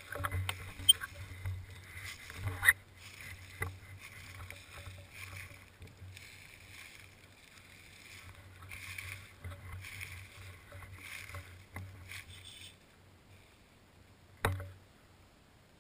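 Dry fallen leaves crunching and rustling in a steady rhythm under forward movement across a leaf-covered forest floor, with a few sharp clicks. The rustling stops with a couple of seconds left, followed by a single knock.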